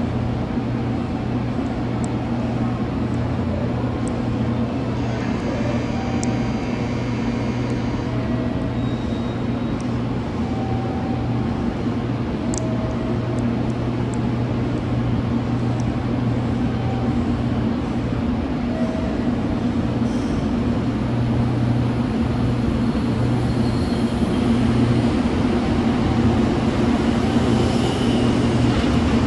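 JR Kyushu 783 series electric train at a platform, with a steady low hum from its equipment. It then pulls away, and the sound grows gradually louder over the last several seconds.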